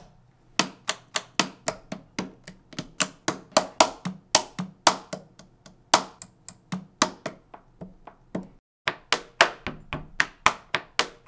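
LEGO bricks and pieces clicking together in a quick, even series, about four clicks a second, with a short break after about eight and a half seconds.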